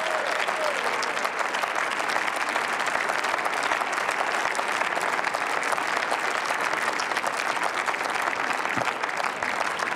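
Sustained applause from many members of parliament, a dense, steady clapping of many hands.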